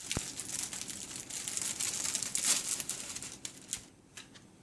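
Crinkling, rustling noise with scattered sharp clicks, dying away after about three and a half seconds.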